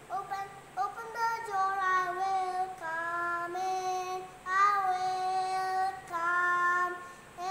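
A young girl singing a song solo and unaccompanied, in a string of long held notes.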